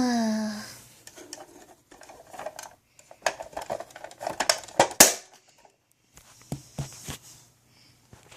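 A short falling voiced sound like a sigh at the very start, then a run of small sharp clicks and taps, thickest about three to five seconds in, with a few more after a pause: small hard plastic toy figures and props being handled and set down.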